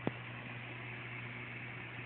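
Steady background hiss with a low hum, and one sharp click just after the start.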